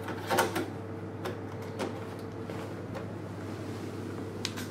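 A few short knocks and taps from a metal rack-mount firewall being handled in its cardboard box, the loudest pair about half a second in, over a steady low hum.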